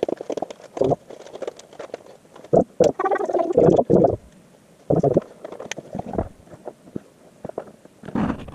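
Handling noise from small plastic parts and their plastic bags being picked through: irregular rustling and clicking in several short clusters.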